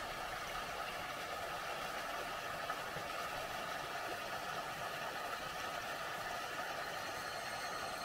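Narrow waterfall pouring over rock into a plunge pool: a steady, even rush of falling water.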